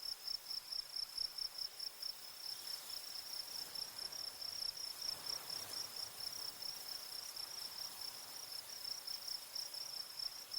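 Crickets chirping in a rapid, even, high-pitched pulse over a faint hiss.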